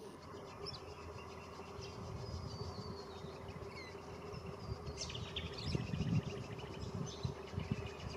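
Distant diesel locomotive hauling a coal train, heard as a steady hum with a low rumble that swells about six seconds in. Birds chirp over it.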